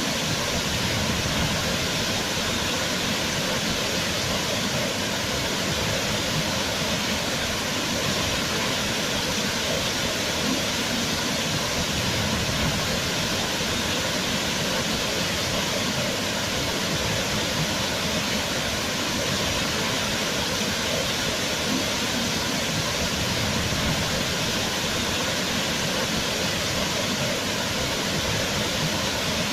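Waterfall: water falling and splashing in a steady, even rush with no change.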